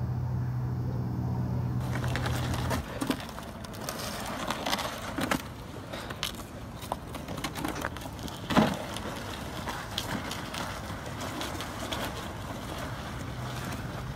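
Plastic ice-fishing sled towed across lake ice, its hull scraping and crunching over the surface with scattered sharp scrapes and knocks, the loudest about eight and a half seconds in. A low steady hum runs for the first few seconds and stops.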